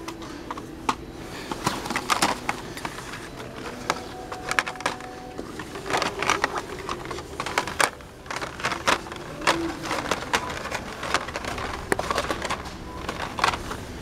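Plastic blister packs of Tech Deck fingerboards being handled and flipped through on store display pegs: irregular clicks, clacks and crinkling rustles, denser around six seconds in and again after about eight seconds.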